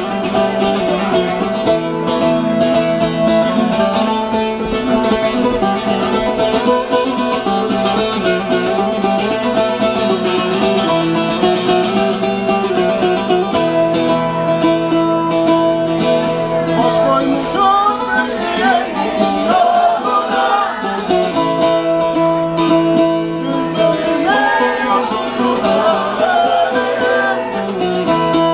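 Amplified bağlama (Turkish long-necked saz) playing a plucked folk-dance tune, with a melody moving over steady ringing drone notes.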